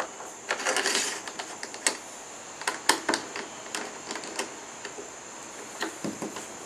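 Irregular clicks and light rattles of small plastic and metal hardware: a bungee cord retainer being slid into a kayak's gear track and tightened down.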